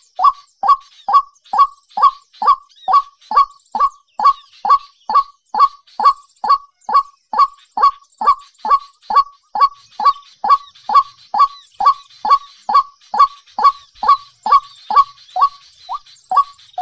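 A bird call: a short note falling in pitch, repeated steadily about twice a second, with faint high-pitched twittering behind it.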